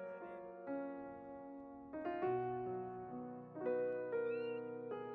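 Background piano music, with notes and chords struck every second or so.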